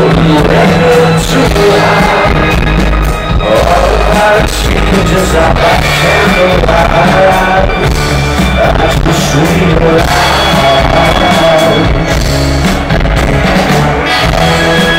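Live rock band playing loud, with electric guitars, drums and a sung vocal line, heard from within the crowd.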